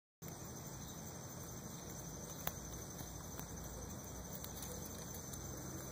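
Faint steady outdoor background noise with a low hum and a thin high whine, broken by one soft click about two and a half seconds in.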